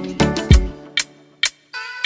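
Background music with a strong beat and pitched instrument notes that drops out about a second and a half in, then swells back near the end.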